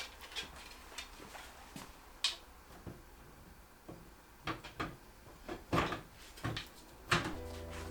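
Scattered light clicks and taps of computer parts being handled and fitted together during a PC build, a dozen or so irregular knocks, with the loudest ones in the second half.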